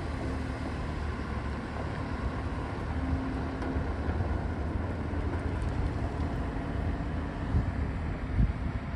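Diesel engine of a JCB 3DX backhoe loader running steadily as it works, a low rumble with a few brief faint whines on top.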